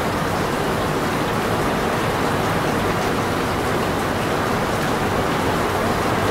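Steady rain falling, a constant even hiss with no separate drops or other events standing out.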